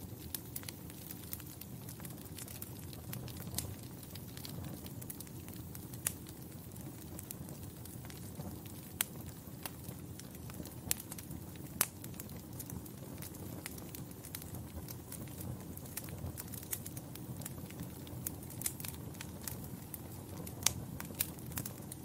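Wood fire crackling in a fireplace: a steady low sound of burning, with sharp pops and snaps at irregular intervals.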